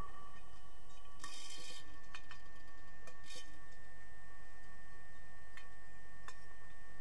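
Underwater sound of an underwater hockey game heard from below the surface: scattered sharp clicks and knocks from the play, and two short hissing rushes, about one and three seconds in, over a steady faint hum with thin high tones.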